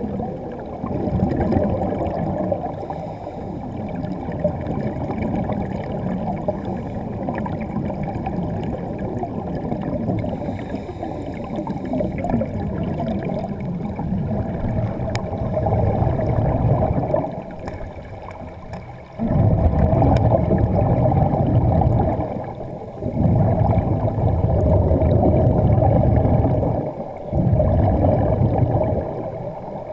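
Air bubbles streaming from diving gear underwater, heard muffled through a waterproof camera housing as a steady bubbling rush. From a little past halfway it comes in louder stretches of several seconds each, with short breaks between them.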